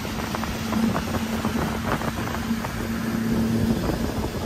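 Pontoon boat's outboard motor running under way with a steady hum, while wind buffets the microphone. The hum stops near the end.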